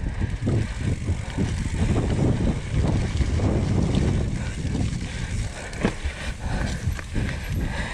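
Mountain bike descending a dirt singletrack: tyres rumbling over the dirt, with the bike rattling and knocking over bumps and wind buffeting the camera microphone.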